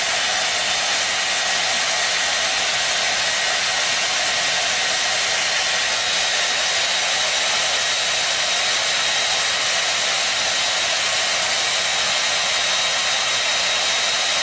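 Steady rushing-air hiss with a faint high whine, unchanging throughout, like a hair dryer or blower running.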